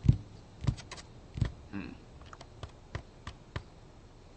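A string of irregular sharp clicks and taps, the first few louder, coming roughly every half second and growing fainter toward the end.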